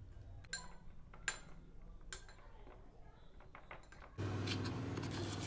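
A few light clinks of utensils against dishes, then a steady hiss with a low hum that starts abruptly about four seconds in.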